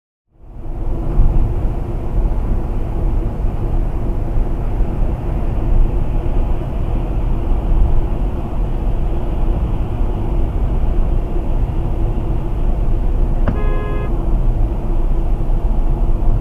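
Steady low rumble of road and engine noise from a moving car, heard from inside the cabin, starting suddenly just after the beginning. Near the end a car horn gives one short toot.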